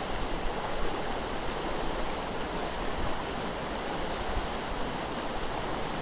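River current rushing steadily past the angler, an even noise of flowing water.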